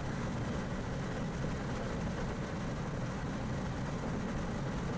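Steady in-cabin drone of a Mazda RX-8 on track: its two-rotor rotary engine running along with tyre and wind noise, with no change in pitch.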